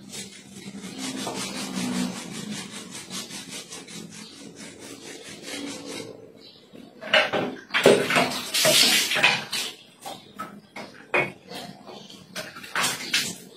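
Brush scrubbing a ceramic toilet bowl: quick, even back-and-forth strokes, turning louder and more irregular about seven seconds in.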